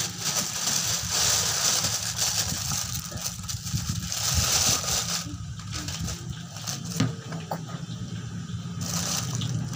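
Thin plastic bag rustling and crinkling as it is pulled off a rubber boot, loudest in the first half, easing off, then picking up again near the end, over a steady low hum.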